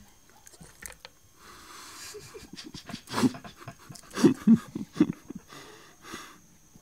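Small black-and-tan dog growling in a run of short snarls about three to five seconds in, with breathy panting between. The snarls are a warning at a hand reaching for the food in front of it.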